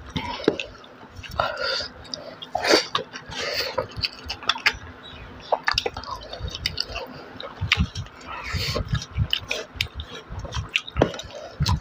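Close-up chewing and wet mouth smacking of a person eating rice and pork curry by hand, in short irregular clicks, with fingers squishing and mixing rice on a steel plate.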